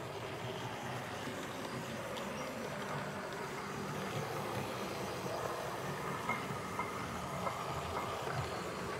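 OO gauge model diesel shunter running along the layout's track with a flat wagon: a steady motor whirr, with wheel clicks over rail joints and points growing more frequent in the second half.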